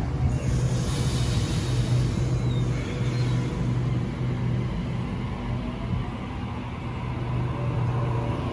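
Double-deck electric suburban train pulling out from the platform: a steady low hum with a brief hiss of air in the first two seconds. From about six seconds in, the traction motors whine up in pitch as it accelerates.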